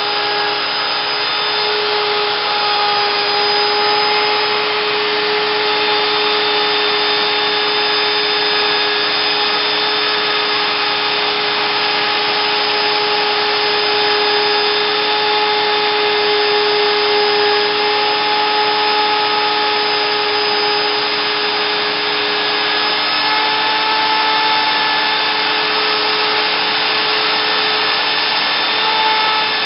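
Trim router spindle of a homemade CNC router running steadily as it engraves a shallow line into the wooden board, together with a vacuum hose sucking up the chips at the bit. A steady whine over a rushing hiss, its pitch shifting slightly now and then as the cut goes.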